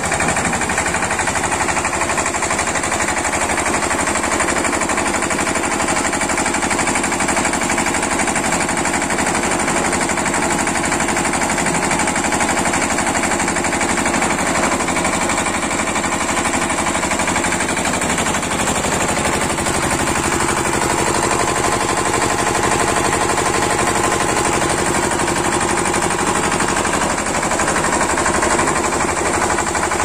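Vegetable washing machine running: a loud, steady, fast mechanical rattle.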